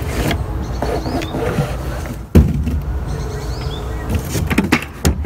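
Cardboard box being handled as a plastic paint bucket is lifted out of it, with one sharp thump about two seconds in and a few lighter knocks near the end.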